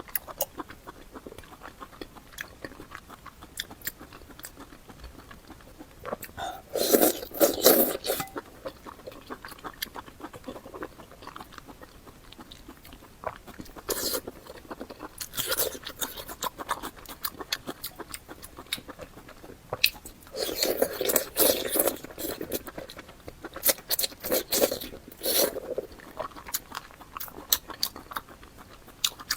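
Close-miked eating sounds: chewing and biting with crunchy, smacking clicks that come in irregular bouts, with louder bursts about a quarter of the way in and again past two-thirds.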